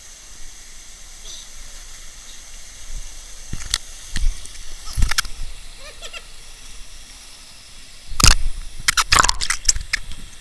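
Stream water flowing through a narrow rock canyon as a steady hiss, broken by sharp splashes and knocks as someone wades through it: a few about four to five seconds in, then a louder cluster near the end.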